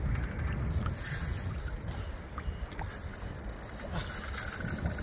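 Penn Authority 5500 spinning reel clicking and whirring as line is worked under the pull of a big hooked catfish, with a fast run of clicks in the first second. A steady low rumble lies underneath.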